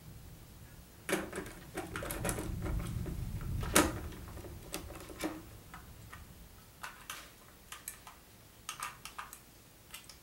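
Small plastic Lego pieces clicking and clattering as they are handled and fitted together: irregular clicks, busiest in the first half, over a low rumble, with one sharp click about four seconds in, then sparser clicks.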